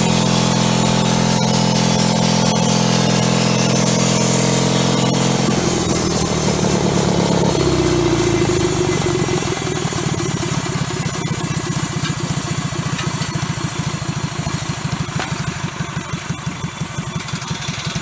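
Kohler engine driving a bandsaw sawmill while the blade cuts a log, running at a steady high pitch. About six seconds in, the sound changes to a lower engine run with a fast, even pulsing beat.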